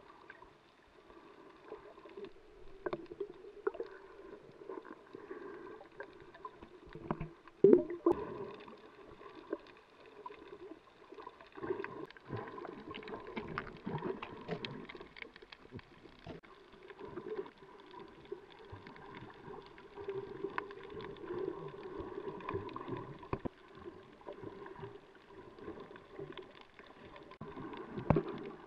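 Underwater ambience picked up by an action camera submerged on a coral reef: a muffled, shifting water noise with scattered faint clicks and crackles, and one much louder thump about eight seconds in.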